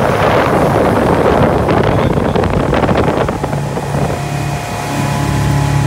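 Small boat's outboard motor running under way, with wind buffeting the microphone. About three seconds in, the wind noise eases and the motor's steady hum stands out.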